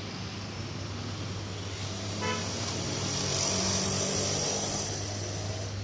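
Road traffic noise under a steady low hum, with a short vehicle horn toot about two seconds in.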